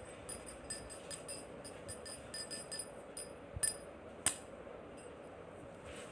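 A run of light clinks with a high ringing, small metal or glass pieces touching, irregular at about five a second, then two sharper knocks about three and a half and four seconds in.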